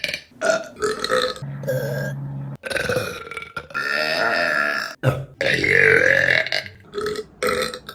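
Women burping, one burp after another: a few short burps, then several long drawn-out ones of a second or more, then short burps again near the end.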